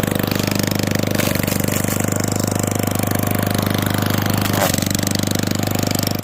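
Straight-piped lawn mower engine, muffler removed, running steadily with a fast, even exhaust pulse. The sound cuts off suddenly at the very end.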